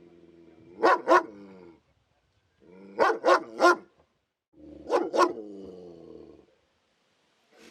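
Police dog barking in short bursts: two barks, then three, then two, with a low growl trailing each burst.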